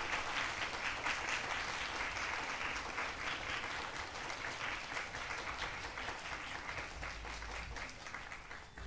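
Audience applauding, the clapping slowly fading away.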